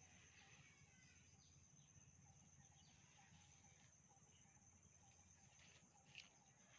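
Near silence: faint outdoor ambience with a steady high-pitched tone and one soft click about six seconds in.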